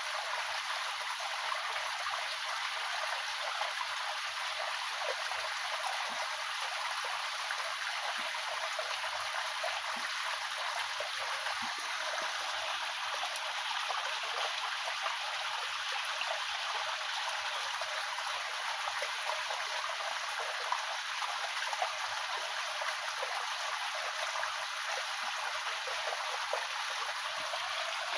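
Running water flowing steadily, an even rushing and trickling with no breaks.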